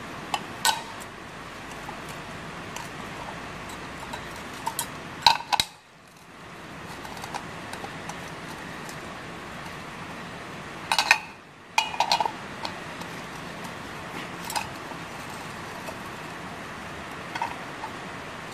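Steel combination spanner clinking against the bolts of a 19-inch Honda mower's blade-carrier disc as its four bolts are undone: scattered sharp metal clinks and taps, loudest about five and eleven seconds in. Over a steady hiss of rain on the shed roof.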